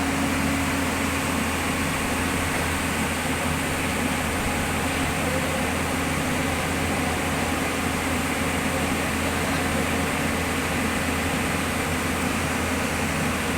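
Heavy diesel engine running steadily at a constant speed, an unbroken low drone with a hiss above it.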